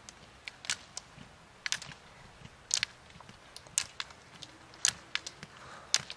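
Roller-ski poles' metal tips clicking sharply on asphalt as skiers skate uphill: irregular clicks from several poles, two or three a second.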